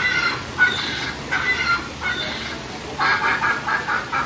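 Recorded squawks and clucks from a theme-park animatronic bird show, a string of separate calls that grows busier about three seconds in.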